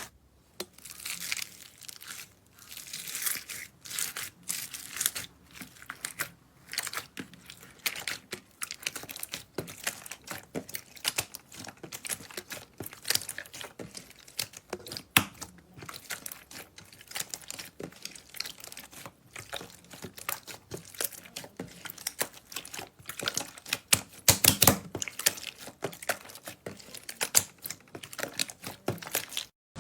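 Slime being pressed, squished and stretched, giving off dense, irregular crackling and popping clicks.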